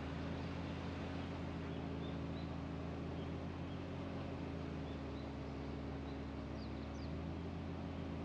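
Car driving at a steady speed: an even engine hum with tyre and road noise, and a few faint, short high chirps on top.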